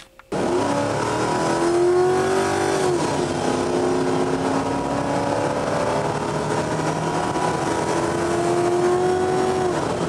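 Car engine running under load, its pitch climbing slowly and then dropping sharply about three seconds in and again near the end, like revving up and lifting off.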